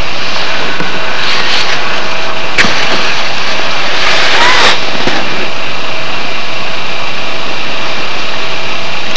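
Loud, steady rushing noise, with a sharp click about two and a half seconds in and a brief louder patch with faint wavering tones around four seconds in.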